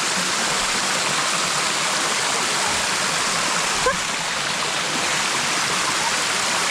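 Steady rush of waterfall water cascading over rock, with a single brief knock about four seconds in.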